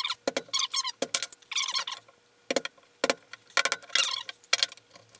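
A chisel working out a small notch in a wooden board, with handling on the workbench: about half a dozen sharp knocks and taps, and two short bouts of scraping between them.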